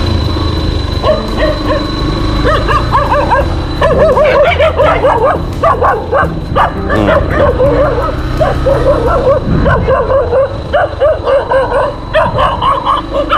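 Stray dogs barking over and over in quick runs as they chase a motorcycle. The bike's engine runs low underneath and fades back a little in the second half.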